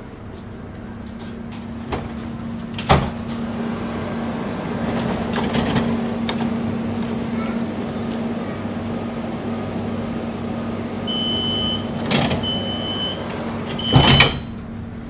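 Interior of a DUEWAG B80D light-rail car standing at a stop, with a steady electrical hum. Near the end a high door warning tone beeps three times and the sliding doors shut with a loud thump.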